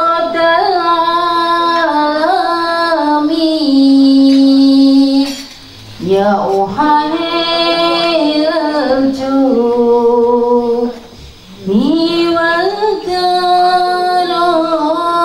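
Female voice singing a slow, ornamented hadroh sholawat melody with no drums, in three long phrases of held and gliding notes, with short breaths between them about five and eleven seconds in.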